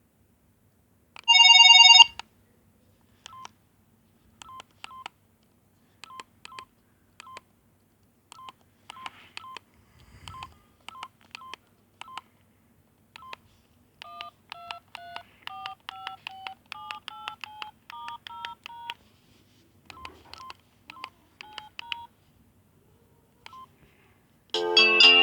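ZTE WP650 phone playing ringtones. A brief loud chime comes about a second in, followed by a long ringtone of short electronic beeps, often in pairs, which becomes a quicker beeped tune jumping between pitches in the middle. Near the end a louder, fuller polyphonic ringtone begins.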